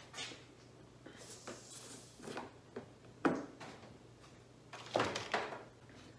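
Scattered knocks and clicks of handling as a plastic fuel can is picked up and its pour spout fitted, the sharpest knock about three seconds in and two more close together near the end, over a faint steady low hum.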